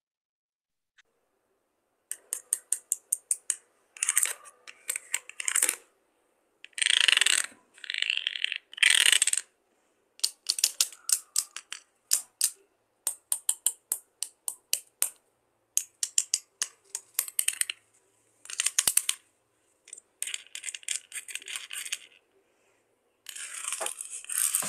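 A thin wooden stick tapped and scraped over a handmade sound picture of beads, stones and plastic pieces glued to a board, starting about two seconds in: quick runs of clicks and ticks broken by rattling scrapes, in irregular bursts.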